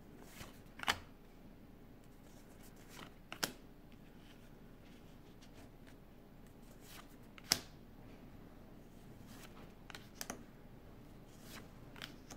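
Stack of Pokémon trading cards being flipped through by hand, one card at a time: soft card-on-card flicks and slaps at irregular intervals, the sharpest about halfway through, over faint room noise.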